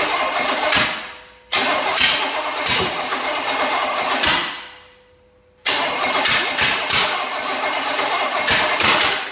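Chevy 305 small-block V8 on a stand, cranked in three bursts: each starts suddenly, runs on the fuel poured into the carburetor and winds down over about a second. The long-stored engine is being run to free a valve that the owners suspect is sticking.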